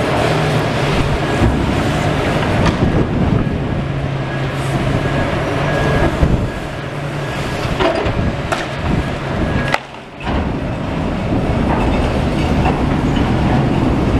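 A metal skip being loaded onto a flatbed truck: a steady mechanical rumble and hum from the truck, with several sharp clanks over the span of the load.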